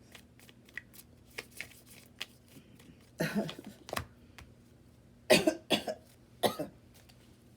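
A person coughing three times in quick succession, short and loud, with faint clicks and taps of tarot cards being handled around them.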